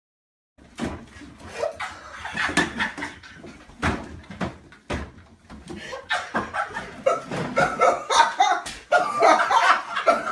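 Indistinct voices mixed with many sharp knocks and smacks, starting suddenly about half a second in and getting busier and louder from about six seconds on.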